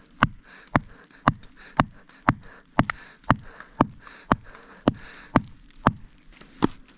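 A wooden log being split with a knife, its blade driven in by evenly spaced knocks, about two a second.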